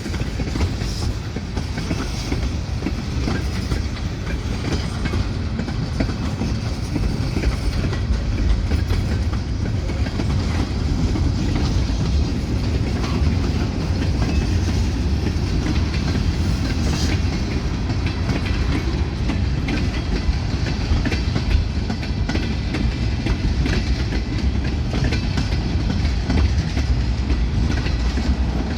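Freight train cars rolling past with a steady low rumble, their steel wheels clicking over rail joints; no horn sounds.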